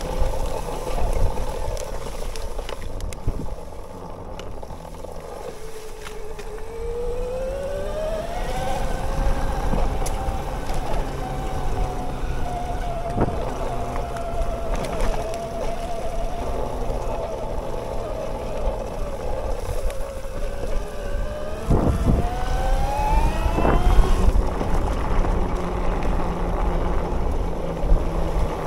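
Bafang BBSHD mid-drive e-bike motor whining under power. Its pitch dips and then climbs twice as the bike slows and accelerates, over a low rumble of wind on the helmet microphone. A few sharp knocks, the strongest about two-thirds of the way through.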